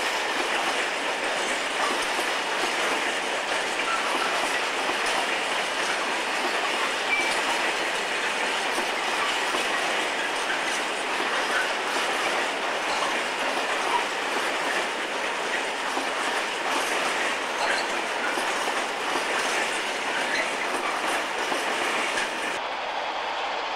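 Freight train of aggregate hopper wagons rolling past, the wheels clattering steadily over the rail joints with a continuous rumble.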